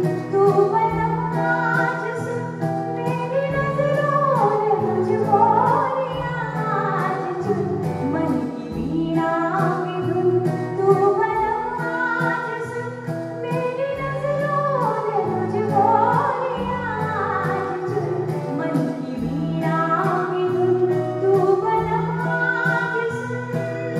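A woman singing an old Hindi film song live into a microphone, backed by a small band with keyboard and electric guitar over a steady beat.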